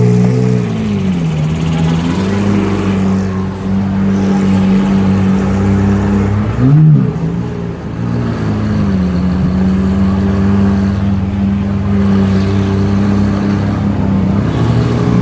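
Lamborghini supercar engine running steadily. Its revs drop at the start, lift slightly about two and a half seconds in, and about seven seconds in it gives one quick, loud blip that rises and falls back.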